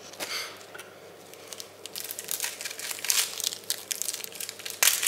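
Dry outer skin of an onion being peeled off with a knife: a run of small, irregular crackles and tearing sounds starting about two seconds in, with a sharper snap near the end.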